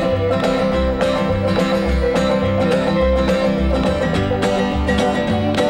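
Instrumental bluegrass-style background music: quick picked banjo and guitar over a bouncing bass line that alternates between two notes.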